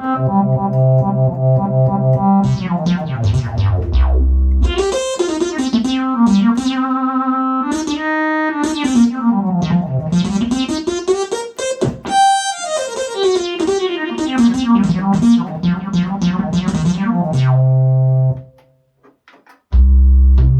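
Yamaha QS300 keyboard playing stock patches. Held chords give way to a low note and then a lead line with sweeping pitch bends that slide up and down. A low note ends it, then comes a short gap of silence before low bass notes start again near the end.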